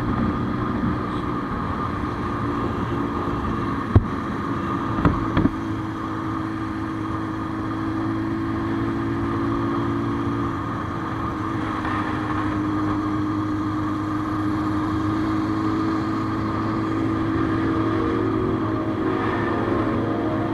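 Motorcycle engine running steadily at an even cruising speed. A sharp knock about four seconds in and two more a second later.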